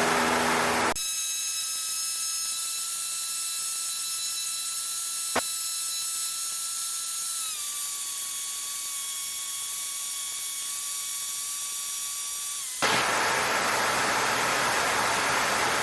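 About a second in, the cockpit engine noise drops out and a steady high-pitched whine with several overtones takes its place. The whine steps down a little in pitch about halfway through, with a single sharp click just before the middle. It cuts off about three seconds before the end as the engine and cabin noise return.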